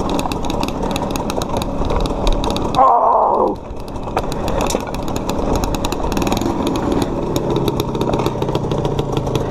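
Dirt bike engine running at low speed down a steep rocky hill, rough and pulsing, with clatter from the rocky ground. There is a brief louder burst about three seconds in, and from about six seconds the engine settles into a steadier, lower note.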